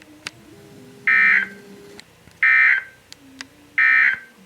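Three short bursts of EAS/SAME digital data tones from a NOAA Weather Radio broadcast, evenly spaced a little over a second apart: the End of Message code that closes a Required Weekly Test.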